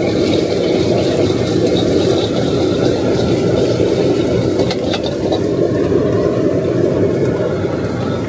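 Commercial gas wok stove running: a steady, loud roar from the burner and extractor hood. A metal ladle clicks once against the wok about five seconds in.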